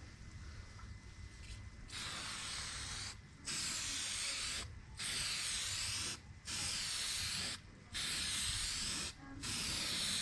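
Aerosol can of Meguiar's headlight coating spraying in about six hissing passes, each roughly a second long with short pauses between, starting about two seconds in, as a wet coat goes onto a headlight lens.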